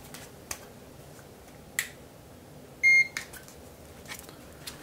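Extech IR200 infrared forehead thermometer giving one short, high beep about three seconds in, signalling that it has taken a temperature reading. A couple of faint clicks come before it.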